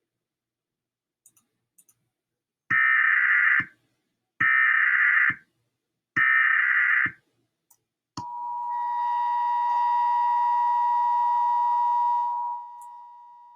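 Emergency Alert System header: three screechy digital data bursts of about a second each, the SAME code that carries the alert's details. They are followed by a steady attention tone that holds for about four seconds and then fades.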